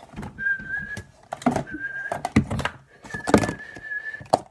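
A person whistling three short steady notes, over sharp wet clicks and pops from slime being squeezed and poked in the hands.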